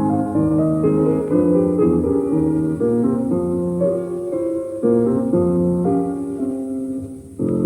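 Piano music playing a steady run of notes, with a brief break just before the end.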